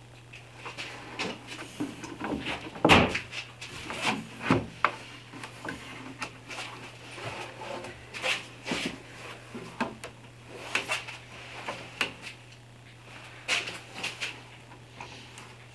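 Bar clamps being positioned and tightened on a glued-up pine panel: irregular clicks, knocks and rattles of the metal clamp jaws and handles against the bars and the wood, the loudest knocks about three and four and a half seconds in. A faint steady low hum runs underneath.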